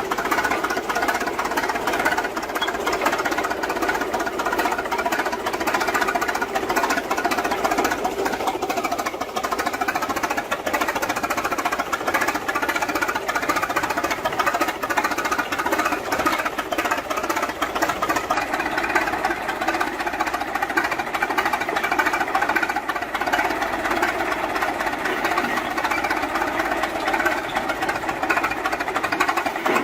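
An old machine running steadily with a fast, even mechanical clatter that cuts off right at the end.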